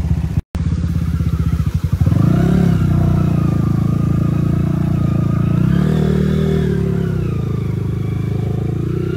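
Dirt bike engine running at a fast, even idle, then revved up about two seconds in and held under throttle, rising again briefly around six seconds in before easing back.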